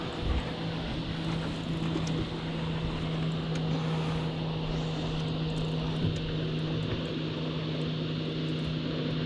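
Boat's outboard motor running steadily, a constant low hum.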